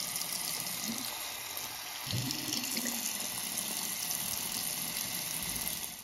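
Water running steadily from a tap into a sink.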